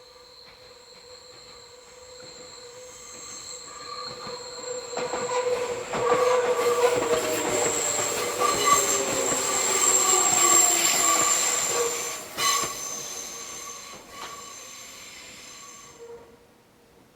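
Meitetsu train's wheels squealing as it rounds a sharp curve: several high, steady screeching tones over the rumble of the passing cars. It builds over the first few seconds, is loudest in the middle and dies away near the end.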